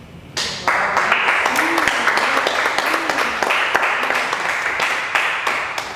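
Audience applauding: many hands clapping together, starting about half a second in and fading away near the end.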